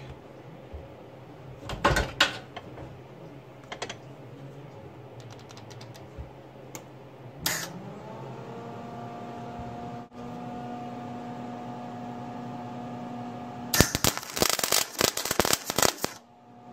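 Wire-feed welder laying a short spot weld on a steel gearbox shift segment: about two and a half seconds of dense, loud arc crackle near the end. Before it, a few handling clicks, then the welder's hum comes on about eight seconds in, rising briefly in pitch and then holding steady.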